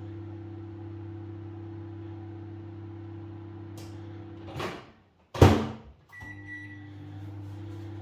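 Steady electrical hum of a running kitchen appliance. It breaks off about four and a half seconds in for a loud clatter, then a short high beep, and the hum resumes.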